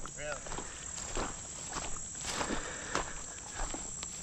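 Steady high-pitched chirring of insects, with scattered footsteps and rustling on dry grass and mud.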